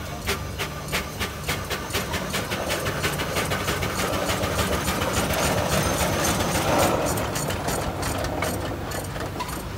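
A.B. Farquhar steam traction engine running, its exhaust chuffing in a regular beat. A hiss of steam swells in the middle and dies down again near the end.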